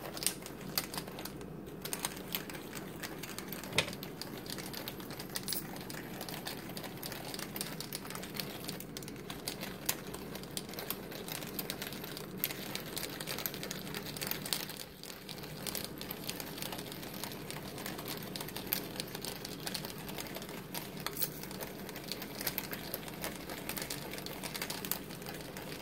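Hand pepper mill grinding black peppercorns: a continuous run of fine, rapid clicks and crunching as the mill is twisted, with a brief pause about midway.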